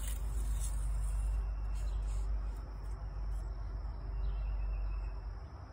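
Steady outdoor background: a low rumble with insects calling in a faint, steady high tone.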